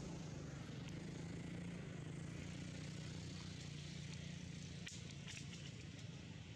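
Quiet outdoor background: a steady low hum under a light hiss, with a few faint crackles about five seconds in.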